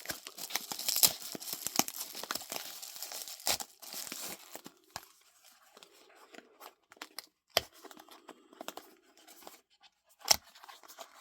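Knife packaging being crinkled and torn open by hand: dense crackling for the first four seconds, then scattered rustles and a few sharp clicks.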